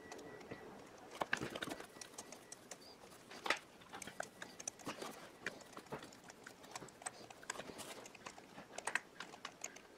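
Scattered small metal clicks and rustling at an irregular pace as a socket and extension are handled and worked down onto a spark plug deep in an engine bay, with a slightly louder click about three and a half seconds in.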